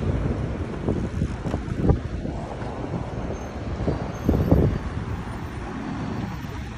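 City street traffic noise with wind buffeting the phone's microphone, in low irregular thumps that are strongest about two seconds in and again past four seconds.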